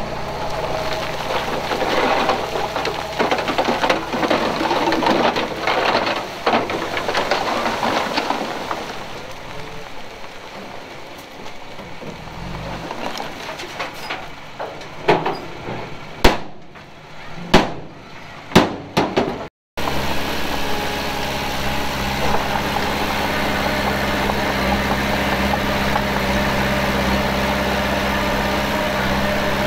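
Diesel engine of heavy earthmoving machinery working, with rattling and clanking over the first several seconds. A few sharp loud bangs come about 15 to 19 seconds in, then after a brief dropout the engine runs steadily.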